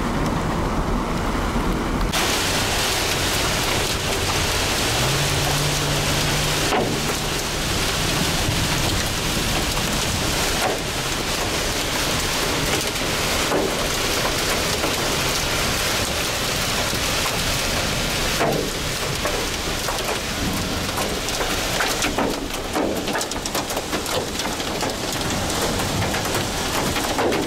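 Heavy rain beating on a storm-chase van, heard from inside the cabin as a steady loud hiss that comes in suddenly about two seconds in.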